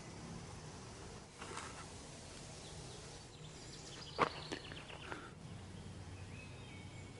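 Quiet outdoor ambience: a steady background hiss, a short rustle about a second and a half in, and a sharp click just past four seconds followed by a brief run of faint high chirps.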